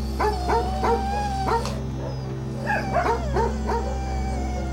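Shelter dogs in their kennels barking in quick runs of about four barks a second, with a pause of about a second between the runs. A long, wavering high note is held through the barking.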